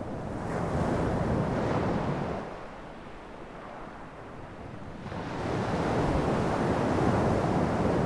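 Sea surf breaking on a rocky shore. Two waves swell and wash in, one about half a second in and another about five seconds in, with a quieter lull between them.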